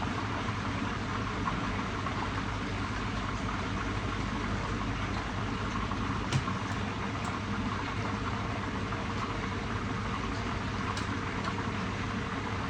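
Fish frying in hot oil in a pan: a steady sizzle over a low hum, with a couple of faint clicks about halfway and near the end.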